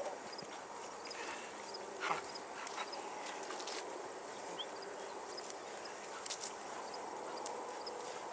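Steady high insect chirring, as of crickets, with a few brief scuffs and knocks about two seconds in and again past six seconds.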